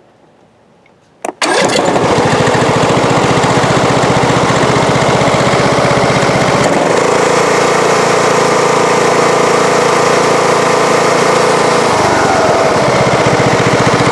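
Riding lawnmower engine starting up about a second and a half in and then running steadily, loud; its speed changes about halfway through and again near the end.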